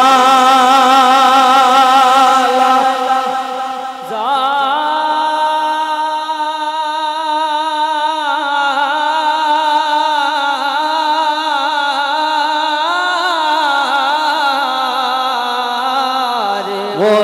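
Male naat reciter singing Urdu devotional verse through a microphone, drawing out long notes with strong vibrato. After a brief break about four seconds in, he holds one note for about twelve seconds before it breaks off near the end.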